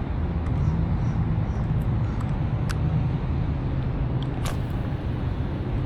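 St. Croix Fishing Machine spincast reel being cast and reeled: a few sharp clicks, the loudest about four and a half seconds in, over a steady low rumble.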